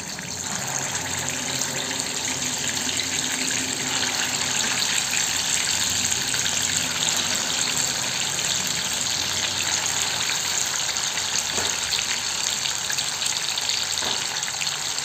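Wet ground masala paste frying in hot oil in a kadhai: a steady sizzle with oil bubbling around the paste, growing a little louder over the first few seconds.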